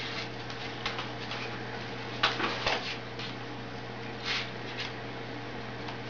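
A white cockatoo moving about on a wooden tabletop: a few short scrapes and taps, the loudest cluster about two seconds in and another near four seconds, over a steady low electrical hum.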